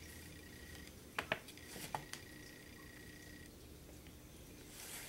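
A few light clicks and taps from balsa sticks being pressed into the notches of a balsa model airplane frame on the work board, about four in quick succession just over a second in, the first two loudest.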